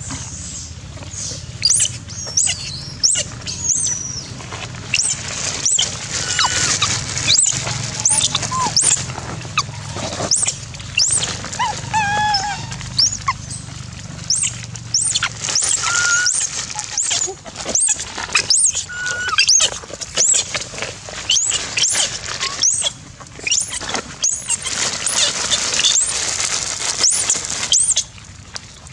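Young long-tailed macaques squealing to be fed: many short, high-pitched squeaks that rise and fall, over and over, with a few lower wavering calls midway.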